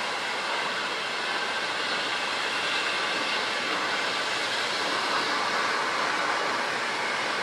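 Conrail end-cab diesel switcher No. 9344 moving slowly with a cut of tank cars: a steady rushing of engine and rolling stock, with no clear knocks or squeals.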